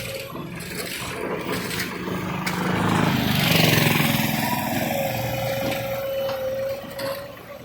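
A motor running with a steady whine, swelling to its loudest about three to four seconds in and then easing back.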